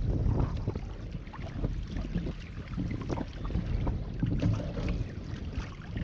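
Wind buffeting the microphone in a steady low rumble, with choppy water lapping and knocking against a kayak's hull in scattered small slaps.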